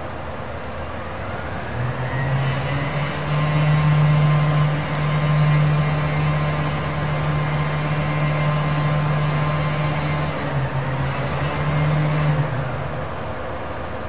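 Crane's engine revving up about two seconds in and holding a high, steady pitch while the crane hoists a cut pine section, then dropping back to idle near the end.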